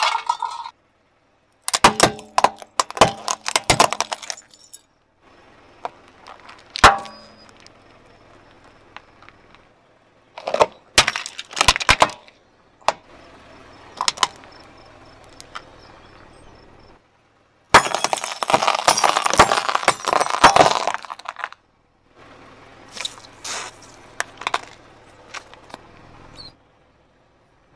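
A car tyre rolling over and crushing small objects one after another: a flattened steel cup, plastic toys and small plastic squeeze bottles. Each crushing makes a burst of sharp cracks, snaps and crunches, the longest and loudest about two thirds of the way through. Each burst stops abruptly and is followed by a short lull.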